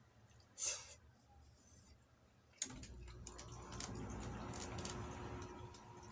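A person eating inari sushi (rice in fried tofu pouches) up close: chewing with many small irregular wet clicks, and a short noisy burst under a second in. A sharp click about two and a half seconds in, after which a faint steady hum sits underneath.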